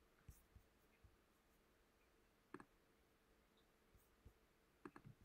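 Near silence, with a few faint, scattered computer mouse clicks.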